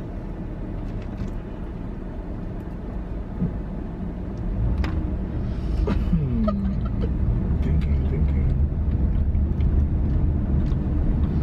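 Car engine and road rumble heard from inside the cabin as the car pulls away from a stop, growing clearly louder about four and a half seconds in.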